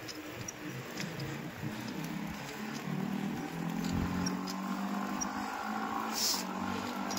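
Riding noise from a bicycle on a paved road: a steady haze of tyre and air noise with a few faint clicks, and a low hum that grows louder about three seconds in.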